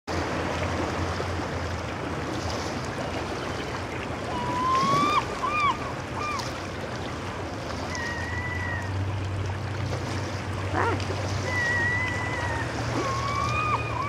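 Gulls calling over steady water noise as they squabble over a salmon: a quick run of short, yelping calls about four seconds in, single drawn-out calls later, and another rapid series near the end.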